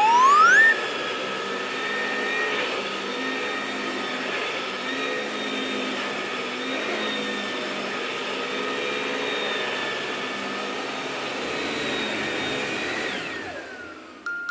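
Toy vacuum cleaner running: its small motor's whine rises as it spins up in the first second, holds steady with a hum of suction noise, then falls away and fades as it is switched off near the end.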